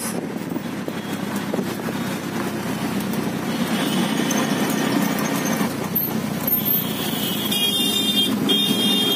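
City road traffic heard from inside a moving vehicle: steady engine and road noise, with a high-pitched horn beeping in a few short blasts near the end.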